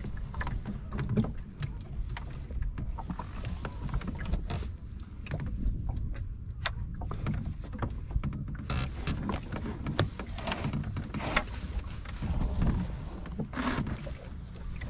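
Water sloshing along the wooden hull of a small sailing dinghy under way, with a low wind rumble on the microphone. Scattered clicks and knocks come from the lines and cleats being handled.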